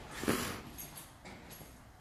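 A single thump about a quarter of a second in, dying away into quiet room tone.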